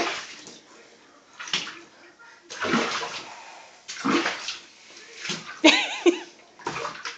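Bath water splashing and sloshing in a bathtub in several separate bursts as a baby moves and slaps at the water.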